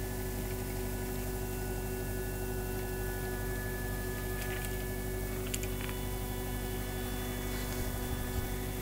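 A steady hum made of several held tones at an even level, with a few faint clicks about halfway through.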